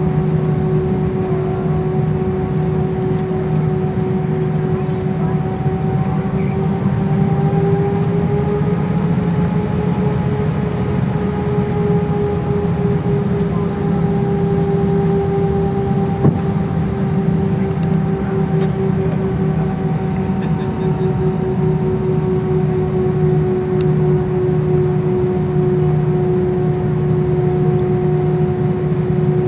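Airbus A319 cabin during taxi: jet engines at idle giving a steady hum with a whine that rises slightly partway through and settles back.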